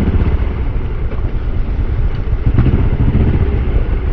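Off-road dirt bike engine running under part throttle along a wooded race trail, heard from on the bike itself, with a few brief knocks from the bike over rough ground.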